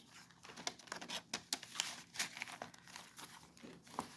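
Paper rustling and crinkling as the pages, pockets and paper ephemera of a handmade junk journal are handled and turned, a run of short crackles.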